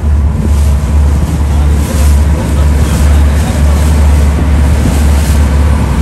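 Boat under way at sea: a steady low engine and hull rumble with water rushing past, and heavy wind buffeting the microphone.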